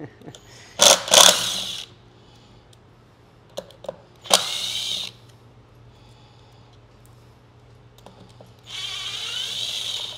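Cordless power drill/driver running in three short bursts, backing out bolts from an electric unicycle's casing, its motor whine shifting in pitch as it spins.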